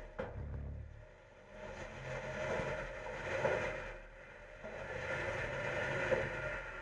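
Mack LEU front-loader garbage truck's engine and running gear, heard from the hopper full of recycling. A sharp knock comes about a quarter second in, then a short low rumble, then the engine swells up and eases off twice.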